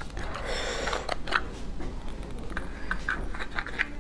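Cooked crab shell being cracked and pulled apart by hand, with scattered sharp cracks and clicks of shell and a brief rasping scrape about half a second in.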